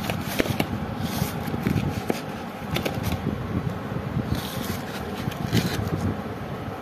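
Cardboard firework box being handled and its flap opened, with short scraping and rustling sounds several times over a steady low rumble.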